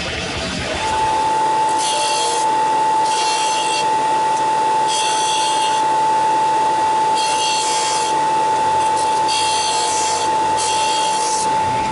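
Steel tang of a 5160 spring-steel bowie knife being worked with an abrasive tool. A steady high whine starts about a second in, and six short rasping passes of metal against the abrasive come about every one to two seconds.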